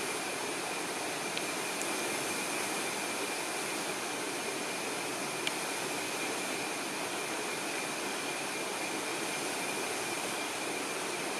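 Steady chorus of night insects: an even high hiss with a constant thin whine running under it.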